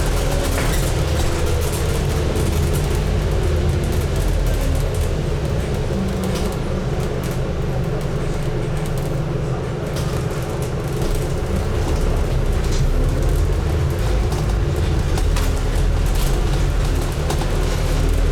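Scania N250UD double-decker bus driving, its nine-litre five-cylinder diesel running with a steady low drone. The engine's pitch falls over the first few seconds and climbs again later as the bus eases off and accelerates. Light rattles and clicks are heard from inside the bus.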